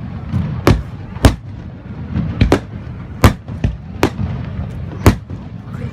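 Fireworks display shells bursting: about seven sharp bangs at uneven intervals, with a low rumble between them.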